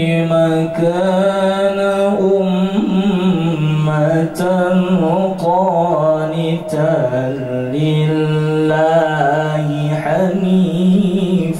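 A man reciting the Qur'an in the melodic tilawah style into a microphone, singing long drawn-out phrases whose pitch wavers and turns in ornaments.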